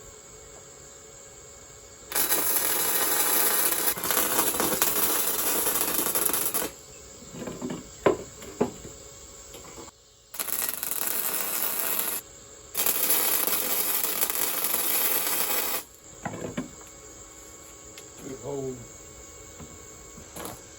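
Three bursts of harsh, hissing metalworking noise on rebar, a few seconds each, starting and stopping abruptly, with a few light metal clinks between them. Crickets chirp in the background.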